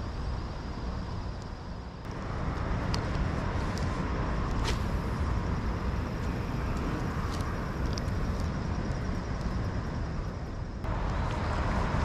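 Steady outdoor rumble of wind on the microphone mixed with creek water, getting louder about two seconds in and again near the end, with a few scattered sharp clicks.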